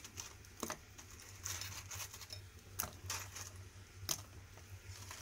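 Fried dahi vada fritters being dropped one at a time into a bowl of lukewarm salted water: a few soft plops and patters, with about three sharper taps.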